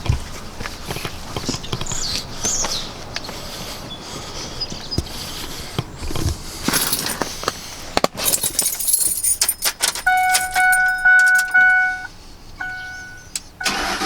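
Keys jangling and scattered clicks and knocks, then a 2007 Ford F-150's dashboard warning chime sounds steadily for about two seconds. After a short pause it sounds once more, briefly.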